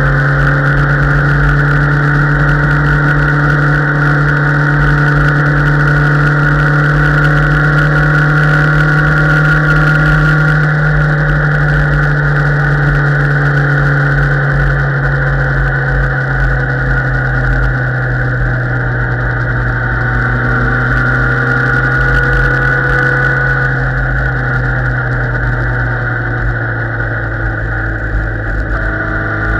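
Motorcycle engine running steadily at cruising speed, with a rushing noise from the ride underneath. The engine note eases slowly lower over the second half as the revs drop.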